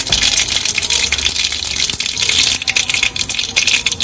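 Mustard seeds spluttering in hot oil in a kadai: a dense, steady sizzle full of tiny crackling pops, the sign that the oil is hot enough and the tempering seeds are bursting.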